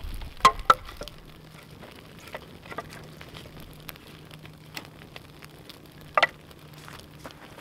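Kindling fire burning under the logs of a Siberian log fire, crackling and hissing with scattered small ticks and a few sharp pops: two about half a second in and another near the end.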